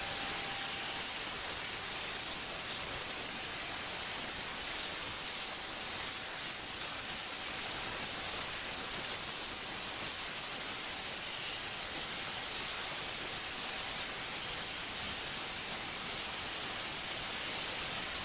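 Abrasive blast nozzle hissing steadily, sandblasting rust off a truck frame.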